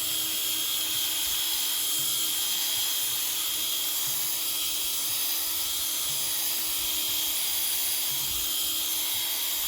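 Electric buffer spinning a pad with heavy-cut rubbing compound on boat gelcoat, its motor running at a steady pitch with a high whine. It comes on right at the start.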